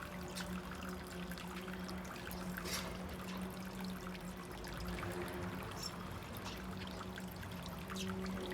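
Water pouring and trickling steadily over a constant low hum, with a few faint high chirps, likely from small birds, about six seconds in.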